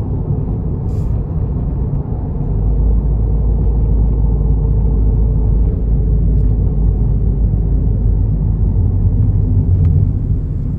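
Road and engine noise of a turbocharged Toyota Tank, heard from inside the cabin while driving: a steady low rumble that gets louder about two and a half seconds in.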